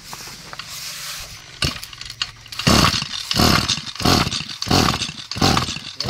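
Recoil starter on a two-stroke brush cutter engine pulled hard and fast, about five pulls in the second half, roughly three every two seconds. The engine does not catch; the owner says he has over-primed it.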